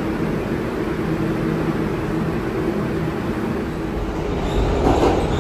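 New York City R142/R142A subway train running: a steady hum from the propulsion over wheel and track rumble, the rumble growing louder near the end.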